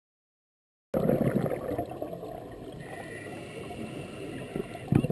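Underwater noise picked up by a GoPro in its waterproof housing on a scuba dive: muffled water sound that starts suddenly about a second in, loudest at first, with another short burst near the end.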